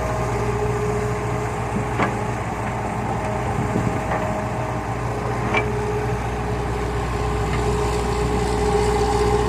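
Diesel engines of a Hitachi excavator and dump truck running steadily under load, with short sharp knocks about two, four and five and a half seconds in.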